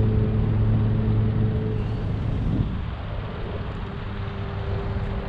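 Outboard boat engine running steadily with a low hum, easing off a little about two seconds in.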